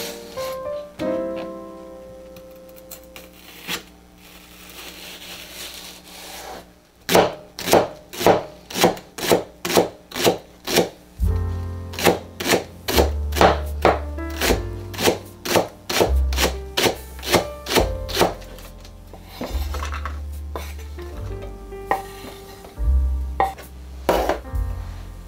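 Knife chopping on a cutting board in a steady run of quick strokes, about two to three a second, that thins out near the end. Background music with a bass line plays under it.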